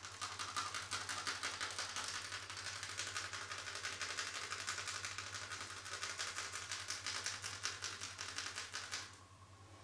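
Rapid percussive massage, hands tapping quickly and evenly on the body at roughly ten light taps a second, stopping suddenly near the end.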